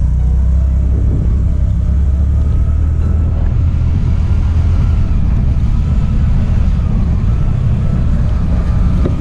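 TVS Jupiter scooter's small single-cylinder engine running as it rides along a hill road, under a steady, heavy low rumble of wind on the camera microphone, with a faint thin whine above it. A sharp click comes right at the end.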